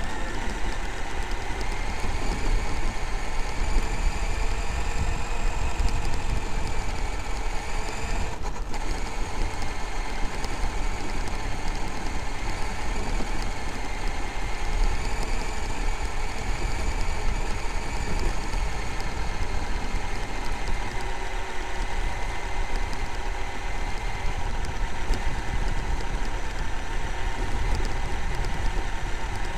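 Traxxas X-Maxx RC monster truck driving over rough grass and dirt, heard from on board: the brushless electric motor and drivetrain whine, rising and falling with speed, over a steady low rumble from the chassis shaking over the ground. The whine drops out briefly about eight seconds in.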